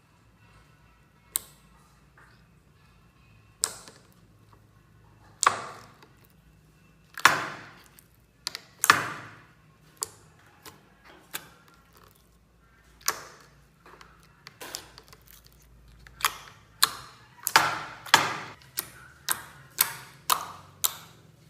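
Slime being pressed and poked, giving irregular sharp pops and clicks, each with a short fading tail, coming faster near the end.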